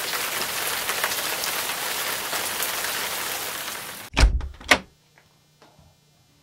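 Steady patter of rain that cuts off suddenly about four seconds in, followed by two heavy thuds about half a second apart. After that only a faint low hum remains.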